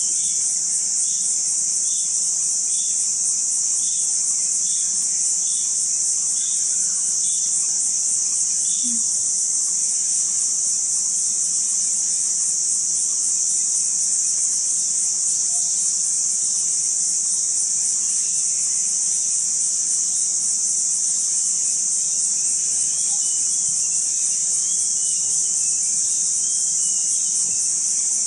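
Loud, steady chorus of forest insects, an unbroken high-pitched shrill. A short high note repeats about once a second for the first eight seconds, and scattered chirps come in near the end.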